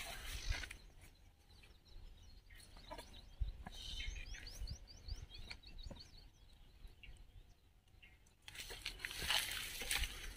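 Footsteps and bodies brushing through dry scrub, twigs and dry leaves crackling underfoot, getting louder near the end. A bird gives a quick run of short rising chirps about four to six seconds in.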